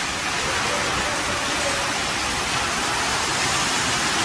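Heavy storm rain driven by strong wind gusts, a steady loud hiss of rain and wind.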